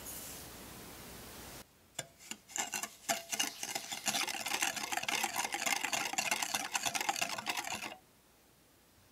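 Wire balloon whisk beating egg yolks and sugar in a glass bowl: a few separate taps, then fast, steady clicking and scraping of the wires against the glass, which stops abruptly about a second before the end.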